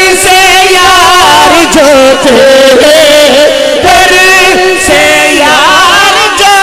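A man's voice singing an unaccompanied manqabat through a microphone and sound system, drawing out long wavering melismatic notes without clear words.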